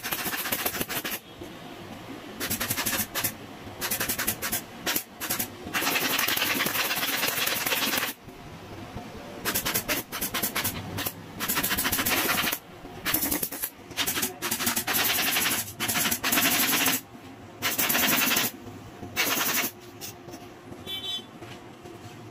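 Cordless impact driver running in many short bursts of up to about two seconds, a rapid rattling hammer as it drives screws into plywood.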